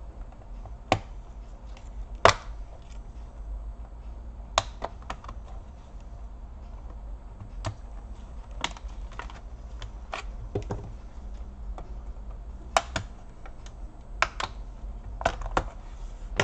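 Acer Aspire 5253 laptop keyboard being pried out with a thin metal blade: irregular sharp plastic clicks and snaps as the blade works under the keyboard and its plastic retaining clips pop free. The loudest snaps come a little after two seconds and near thirteen seconds.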